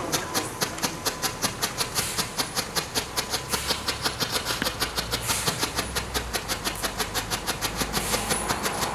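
Ground firework of white strobe (flashing) pellets firing: an even, rapid stream of sharp pops, about six a second, over a spray of sparks.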